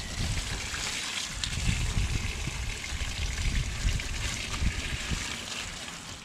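Dirty water poured from a plastic bucket into a metal storm-drain grate: a steady splashing stream that thins to a dribble near the end.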